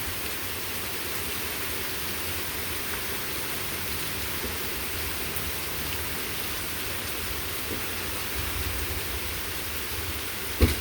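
Steady rain falling, a continuous even hiss, getting a little harder. A single short thump near the end.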